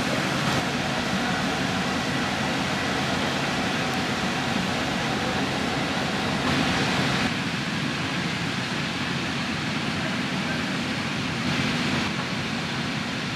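Steady rushing air noise, even and unbroken, with no distinct knocks or tones.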